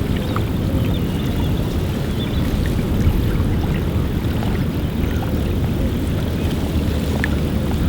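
Wind blowing across a lakeside bank with a steady low rumble, and small water laps and ticks at the water's edge.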